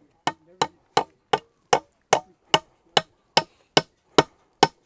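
Steady, evenly spaced sharp strikes of a hand tool on wooden fence-post work, about two and a half blows a second, twelve or so in a row.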